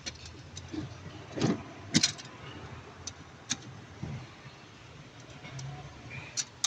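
Scattered sharp metallic clicks and clinks of tools and brake pads against a Porsche Panamera brake caliper during pad removal, the loudest about two seconds in.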